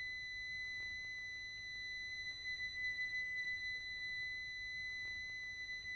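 Trailer sound design: a steady, high-pitched pure ringing tone, like a tuning fork, held unchanging over a faint low rumble.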